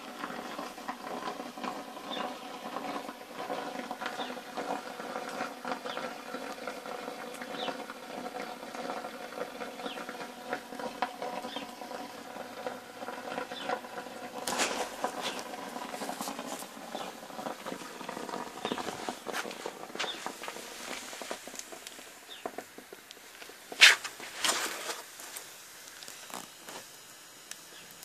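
Homemade gas-bottle water boiler heated on a wood-fired rocket stove: the water boils inside with a steady hum that fades about halfway through as steam escapes, while the wood fire crackles and ticks, with one sharp crack near the end.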